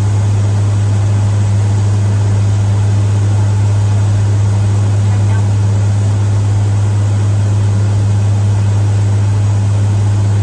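Steady, loud mechanical drone with a constant low hum that does not change.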